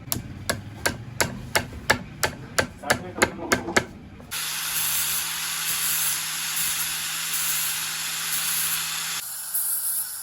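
Rapid hammer taps on metal, about a dozen evenly spaced strikes at roughly three a second, typical of peening a pocket-knife pivot pin. The taps stop after about four seconds. A steady rushing noise with a low hum follows, from a small power tool running.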